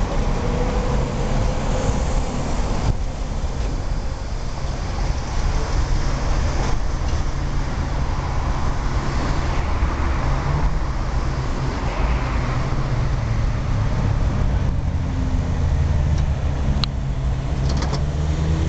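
Street traffic noise as a set of fifty-year-old Ganz UV tramcars runs through a curve in the track and away. A low hum rises in pitch a couple of times in the second half, and there is one sharp click near the end.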